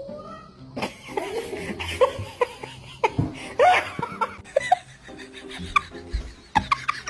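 Person laughing hard in short, repeated bursts.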